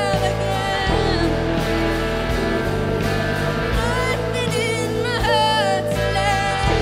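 Live rock song: a woman's lead vocal over electric guitar and band, sung in several phrases with notes that bend in pitch.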